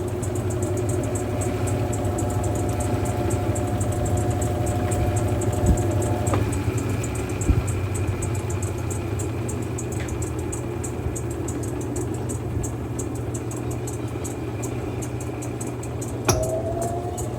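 Mueller Popmatic 8 kg top-loading washing machine running steadily, its motor humming, with a few sharp clicks and a short rising tone near the end.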